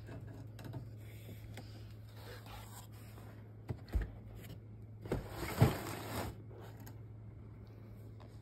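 A handmade cardboard staircase being handled and knocked against a plastic hamster cage: a couple of knocks about halfway through, then a louder cluster of knocks with a scraping rustle a little later. A steady low hum runs underneath.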